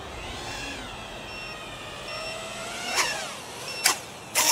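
Brushless motors of a small FPV racing quadcopter whining, rising and falling in pitch with the throttle. Sharp knocks about three and four seconds in and a burst of noise near the end come as the quad hits the wet grass and its props stop.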